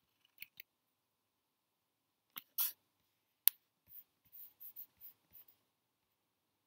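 Faint handling noises: a brief scrape about two and a half seconds in, a sharp click a second later, then a quick run of short scratchy rubs.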